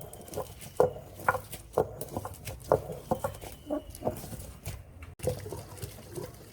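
A rapid, irregular series of light knocks and clinks, about a dozen, each ringing briefly.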